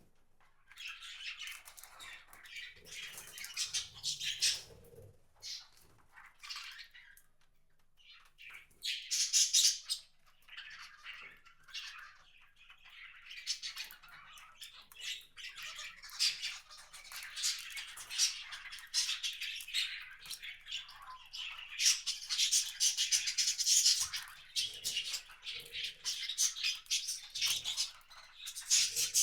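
Small wild birds at a feeder chirping and calling in many short, overlapping notes, with louder flurries about ten seconds in and again near the end.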